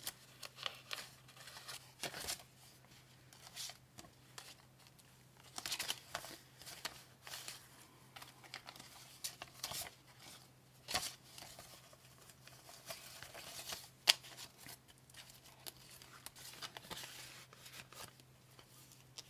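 Paper banknotes rustling and crinkling in short, irregular bursts as they are handled and counted, with scattered light taps and one sharp click about two-thirds of the way through.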